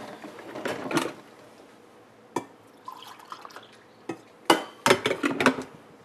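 Kitchen crockery sounds: a ceramic mug and dishes clinking on the counter, with coffee poured from a glass carafe into the mug. A cluster of sharp clinks and knocks about four and a half seconds in is the loudest part.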